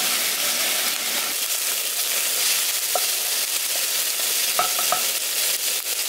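Ginger paste sizzling in hot oil in a kadai as it is stirred and fried lightly, a steady hiss. A few light metal clinks come about halfway through and again around five seconds in.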